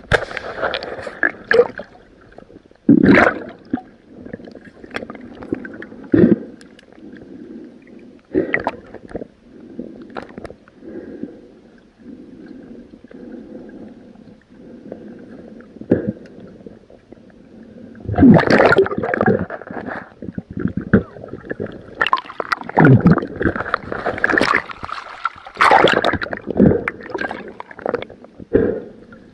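Water heard through an underwater camera: irregular gurgling, bubbling and sloshing, with sudden knocks and louder splashy bursts, busiest in the second half.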